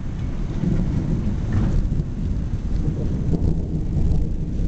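Long, low rumble of thunder.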